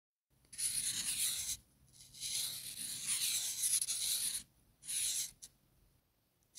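Marker pen tip scratching across paper as a line is drawn, in three strokes: a one-second stroke, a longer two-second one, then a short one about five seconds in, followed by a small tick.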